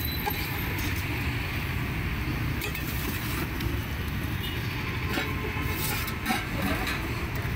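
Steady rumble of passing road traffic, with a few light clicks in the second half.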